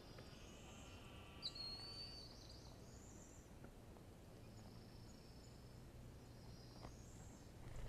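Faint wild bird calls: a few high, thin whistled notes and chirps, the clearest about a second and a half in, over a steady low hum.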